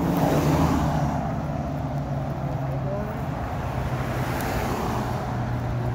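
Car engines running as vehicles drive away, a steady low engine drone over road noise.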